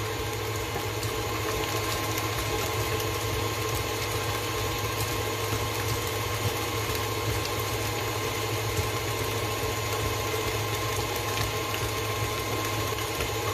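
Stand mixer running steadily at speed, its motor humming evenly as the beater mixes a batter of creamed butter and sugar while eggs are added.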